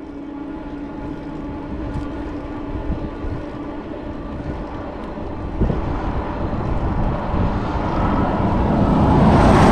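Highway traffic: a motor vehicle approaching and passing close by, its tyre and engine noise building steadily over several seconds and loudest near the end.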